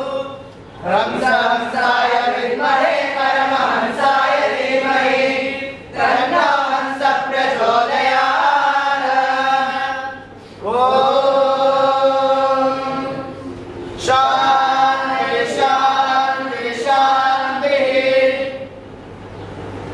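A large group of boys chanting a prayer in unison, in phrases with short pauses between them, stopping shortly before the end.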